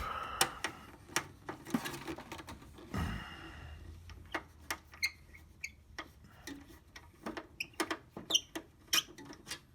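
A screwdriver backing a small screw out of a printer's plastic housing: a run of irregular small clicks and a few short squeaks.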